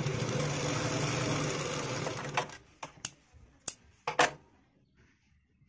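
Sewing machine running steadily as it stitches, stopping about two and a half seconds in. A few sharp clicks and knocks follow, the loudest about four seconds in.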